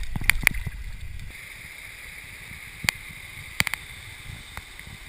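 Steady hiss of moving water, with a low rumble for about the first second and a few sharp clicks scattered through it.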